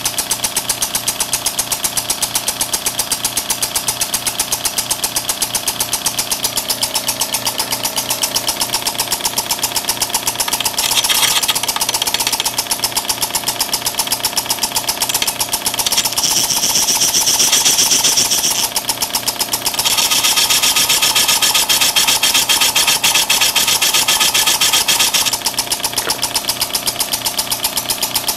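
Small two-stroke generator engine converted to run through a 12-volt solenoid inlet valve and an auxiliary exhaust, running with a rapid even beat of valve clicks and exhaust puffs. A louder hiss swells in and out a few times, a brief one before the middle and a longer stretch in the second half.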